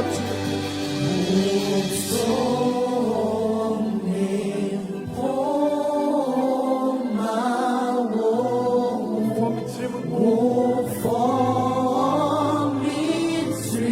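Choir singing a gospel worship song in long held notes that glide from pitch to pitch, over a steady low instrumental backing.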